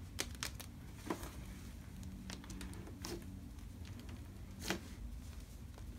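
Cloud slime with small plastic spiders mixed in, pressed and squeezed by fingers wearing plastic witch-finger caps: soft crinkling and squishing with a few sharp clicks, the loudest about three-quarters of the way through.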